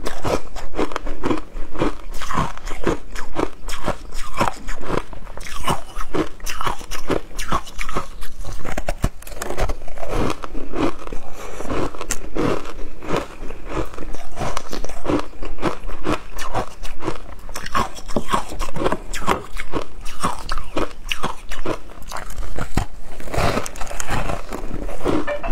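A person crunching and chewing frozen ice blocks coated in matcha powder: a fast, continuous run of crunches as the ice is bitten and ground between the teeth, with a few louder bites near the end.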